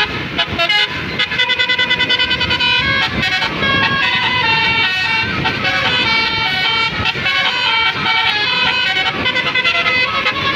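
Basuri telolet bus horn, a multi-tone musical air horn, playing a tune in stepped notes. About a second in comes a fast run of short toots, and held notes follow.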